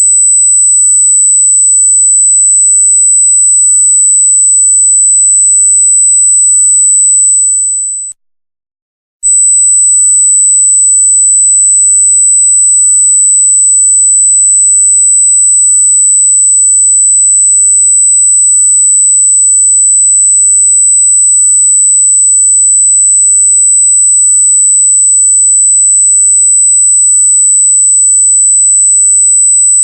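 Loud, steady, very high-pitched pure electronic tone. It fades out about eight seconds in, stops for about a second, then resumes at full level.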